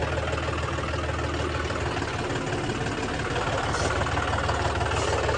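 John Deere tractor's diesel engine running steadily as the tractor drives along a dirt track towing a trailer; the low engine hum eases about two seconds in and comes back strongly near the end.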